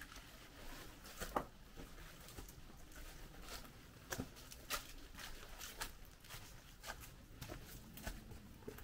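Faint, irregular footsteps and scuffs: scattered light crunches a second or so apart.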